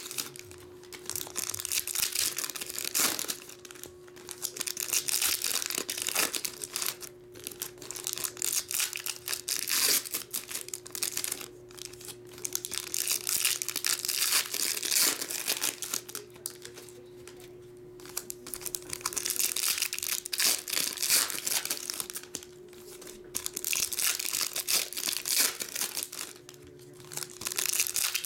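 Foil trading-card pack wrappers being torn open and crinkled by hand, in repeated bouts of rustling a few seconds long with short pauses between.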